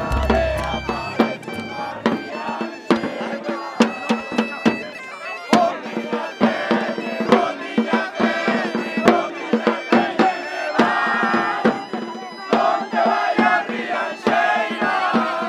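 A bagpipe playing a folk tune over its steady drone, with drums beating a regular rhythm. Guests' voices sing and shout along, most clearly in the second half.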